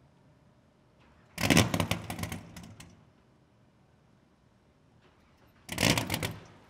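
A Sterling 750 hp race-boat engine cranking over and firing in a rapid string of exhaust pops, twice: a burst of about a second and a half, then a shorter one near the end. Each time it stops and does not keep running.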